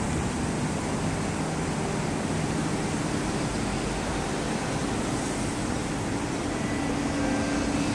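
North–South Line metro train running alongside the platform and drawing to a stop: a steady, even rush of train and station noise. A faint steady hum comes in near the end.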